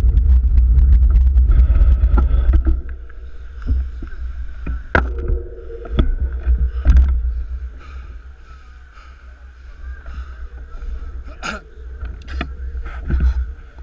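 Low wind and road rumble on a handlebar-mounted GoPro as the road bike rolls slowly, dying away about three seconds in as the bike stops. After that come scattered sharp knocks and rubs of handling against the bike and camera.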